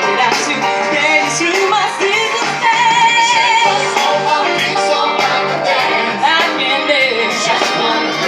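Live band music with a singer holding long notes with vibrato over accompaniment with a regular beat, played at a sound check.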